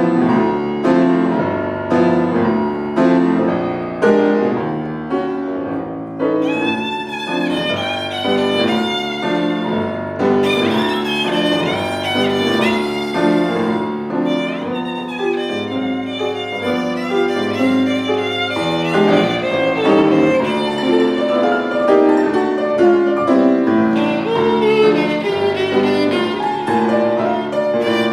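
Violin and August Förster grand piano playing classical music together. The piano strikes chords about once a second, and about six seconds in the violin enters with a vibrato melody over the piano.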